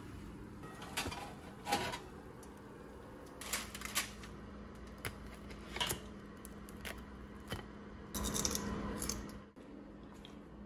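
Light kitchen handling as a baked bagel is taken from a toaster oven's tray with a wooden spatula and set on a ceramic plate: scattered single clicks and knocks about once a second, and a louder rustling scrape lasting about a second, about eight seconds in. A faint steady hum runs underneath.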